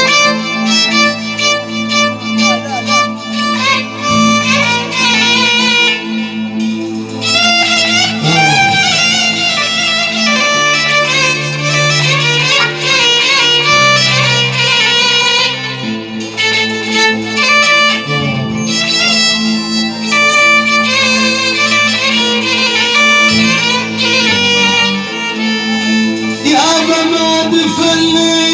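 Instrumental music interlude between sung phrases: a wavering, violin-like lead melody over steady low held notes.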